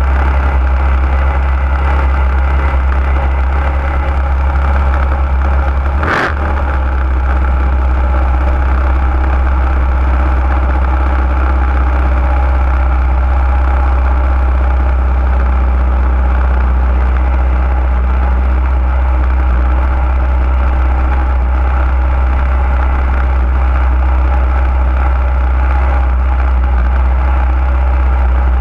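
Junior dragster's small single-cylinder engine idling steadily, heard close up, with one sharp knock about six seconds in.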